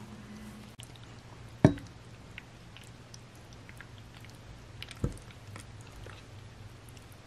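Spaghetti in a creamy sauce being twirled with wooden chopsticks in a nonstick pan and slid onto a ceramic plate: faint wet squishing and small clicks of the noodles and chopsticks, with a sharp knock of cookware less than two seconds in and a softer one about five seconds in.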